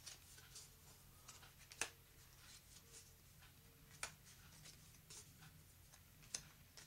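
Faint snaps and rustles of stiff coated card stock as square Rubik's Battle cards are flipped one by one off a stack, with a sharper snap about every two seconds, three in all.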